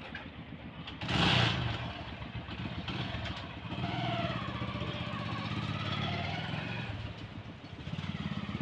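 An engine idling steadily, with a short clatter about a second in.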